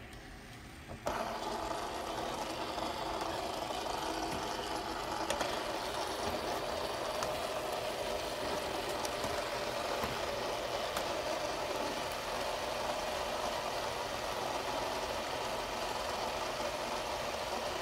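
A gold True Spinners fidget spinner is set spinning about a second in, and its bearing gives a steady, even whir.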